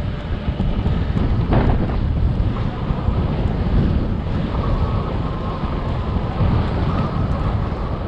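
Strong wind buffeting the microphone: a loud, dense low rumble that rises and falls with the gusts.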